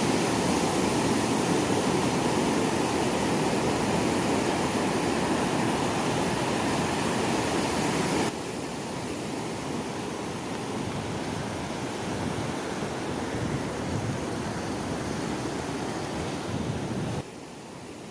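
Sea waves washing on a shore as a steady rushing noise, dropping suddenly in level about eight seconds in and again near the end.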